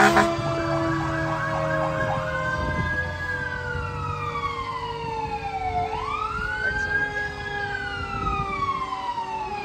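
Fire truck siren: a fast yelp for the first two seconds, then switching to a slow wail that rises, holds and falls about every four seconds.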